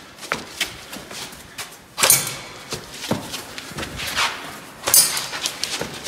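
Airsoft rifle shots and hits on the course's metal targets: sharp cracks with a brief metallic ring, the two loudest about two and five seconds in. Footsteps and smaller clicks and knocks come between them.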